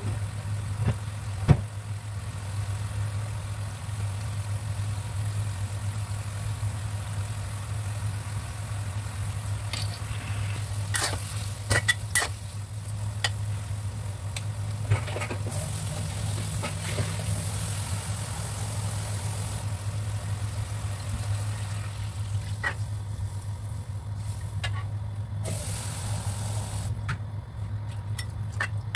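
Beef in a thick soy-and-oyster sauce sizzling and simmering in a stainless steel wok over a steady low hum, with a few sharp clicks of a metal spatula against the pan about a second in and again near the middle.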